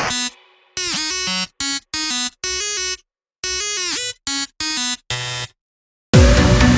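A short electronic jingle of separate synth notes, about nine of them with silent gaps between, several dipping quickly in pitch as they start. Electronic background music comes in near the end.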